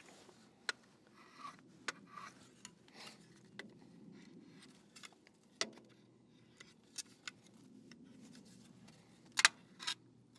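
Light handling noises from applying a wet-method vinyl decal: short rubbing scrapes and scattered small clicks, with a sharper double click about nine and a half seconds in.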